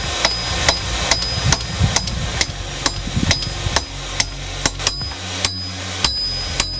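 Hand hammer striking hot steel on an anvil in a steady rhythm, about two blows a second, each with a short high ring.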